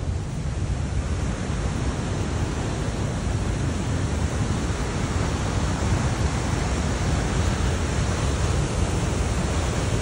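Wind rushing over the phone's microphone: a steady roar with a heavy, unsteady low rumble.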